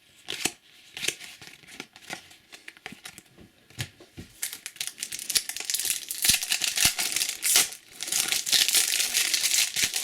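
Topps Cricket Attax trading-card pack wrapper crinkling and tearing as it is handled and opened. A few light clicks come in the first seconds, and dense crackling starts about four seconds in, with a short break near the eight-second mark.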